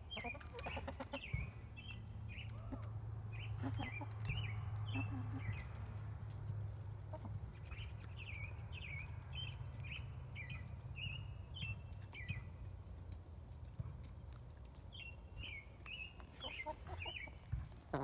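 Hens clucking softly in short runs of high calls while they peck at a hanging wooden treat, with a few sharp taps, over a low steady rumble.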